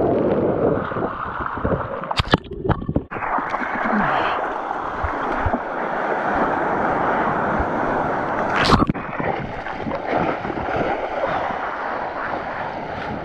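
Rushing, splashing whitewater as a surfboard rides a small wave, with wind buffeting the microphone and a few sharp knocks.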